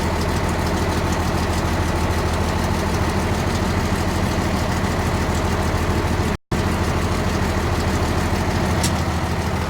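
Truck engine idling steadily, with an even low hum. The sound cuts out completely for a split second about six and a half seconds in.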